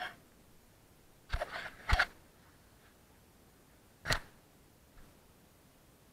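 Handling noise on a small action camera: brief rubbing scrapes and knocks against the camera as it is picked up and moved, a cluster about a second and a half in and one sharp knock about four seconds in, with quiet between.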